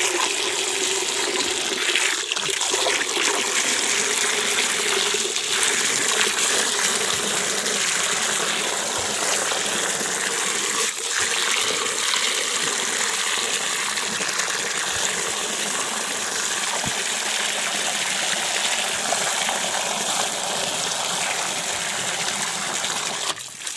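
Water from a hose jetting steadily into a metal pot, filling and frothing a potassium permanganate and bleaching powder disinfectant solution. The flow stops near the end.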